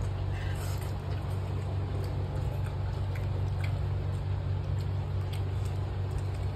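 A steady low hum, with a few faint small clicks and rustles of food being mixed and eaten by hand from a leaf plate.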